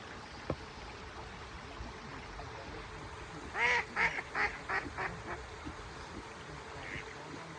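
A duck quacks a quick series of about six calls, the first the loudest and each after it shorter and fainter, over the steady rush of running water.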